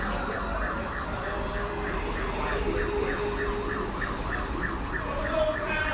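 Emergency-vehicle siren on a fast yelp setting, rising and falling about four times a second, over low city traffic rumble.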